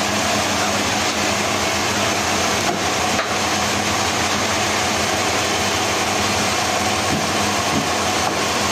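Heavy machinery running steadily: a constant droning hum under an even hiss, with no change in speed or load.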